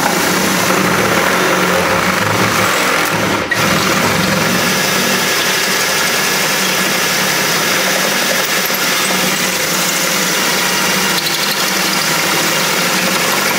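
Ryobi cordless drill with a 3/8-inch bit running steadily as it bores through a soft aluminum rivet holding a window regulator, easing off briefly about three and a half seconds in.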